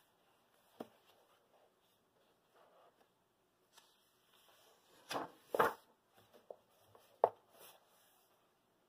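Paper pages of a coloring book handled and turned by hand: a light tap about a second in, then two quick paper swishes in the middle as a page is turned over, and a sharp tap about seven seconds in.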